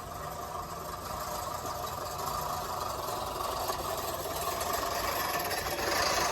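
Manual reel lawn mower's spinning reel blades whirring and clattering as it is pushed through grass, growing gradually louder.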